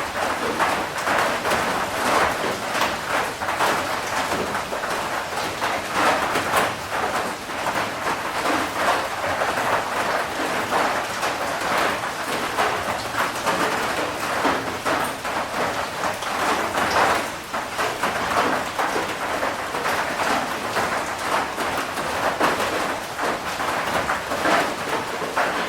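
Heavy rain falling steadily, a dense hiss of drops that swells and eases slightly without stopping.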